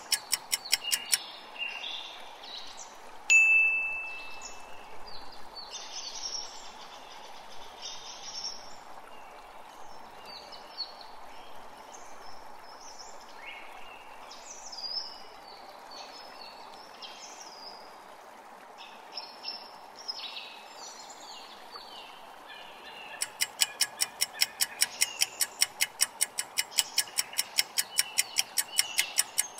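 Quiz countdown-timer sound effect: a fast, even clock ticking that stops about a second in, then a single bright chime about three seconds in as the timer ends. Chirping birdsong follows in the background, and the ticking starts again after about 23 seconds as the next countdown runs.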